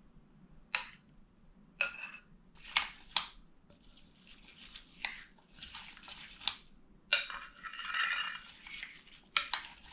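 A metal spoon clinking and scraping against mixing bowls as thin mayonnaise is poured over diced apple and celery and stirred in. Sharp clinks come every second or so, with a longer stretch of scraping and stirring about seven seconds in.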